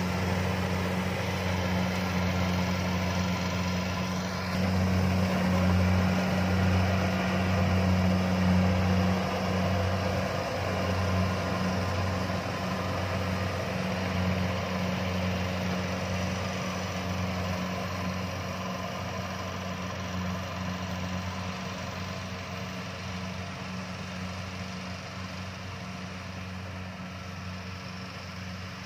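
Kubota DC-70 combine harvester's diesel engine and threshing machinery running steadily while harvesting rice, a low drone that fades gradually over the second half as the machine moves away.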